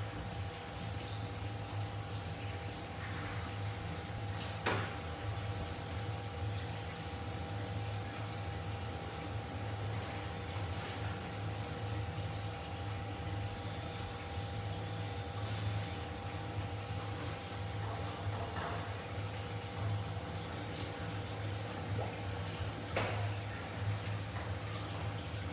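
Aquarium water circulation: a steady trickle and drip of water over a constant low electrical hum, with a couple of short clicks.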